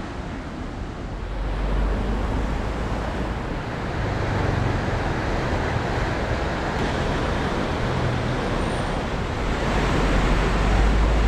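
Steady rushing noise of the Adige river running high and fast in flood, with low wind rumble on the microphone that swells early and again near the end.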